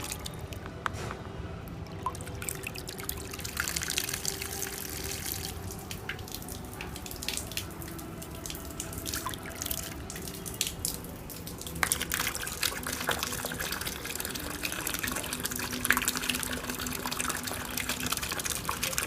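Water sprayed from the outlet of a 12 V mini brushless DC pump (DC30A-1230) splashing steadily, with many small spatters. The splashing grows stronger about two seconds in and again around twelve seconds in.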